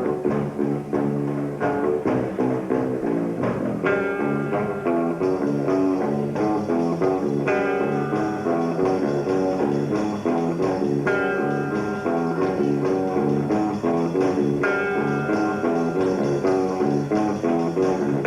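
A band plays an instrumental rock piece led by guitar. Over a busy low accompaniment, a sustained melody line comes in about four seconds in and returns every three to four seconds.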